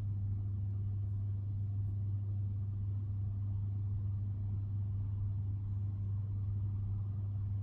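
A steady low hum with no other events.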